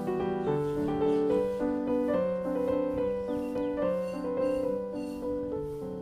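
Background music: a gentle piano melody over held lower notes.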